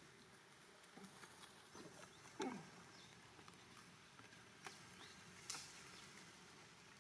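A near-quiet background broken by one short macaque call, falling in pitch, about two and a half seconds in. A few soft sharp clicks follow a couple of seconds later.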